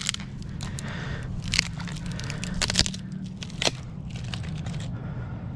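A wooden stick being cut into a spear with a knife: irregular sharp cracks and crunches of wood, about half a dozen in a few seconds.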